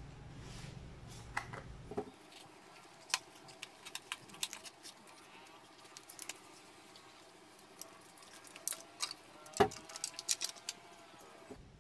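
Unboxing handling noise: a cardboard box is opened and a clear plastic blister tray is slid out and pried open, giving scattered crackles and clicks, with a quick cluster of sharp plastic clicks near the end.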